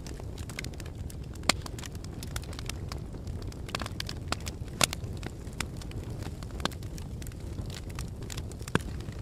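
A fire crackling: irregular sharp pops and snaps, a few of them much louder (about one and a half seconds in and just under five seconds in), over a steady low noise of the flames.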